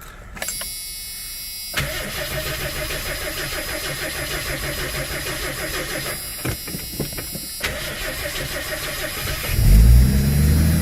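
The Ford Granada's straight-six is cranked over on the starter in two long rhythmic spells on a cold start with a freshly rebuilt carburetor. Near the end the engine catches and runs fast and loud.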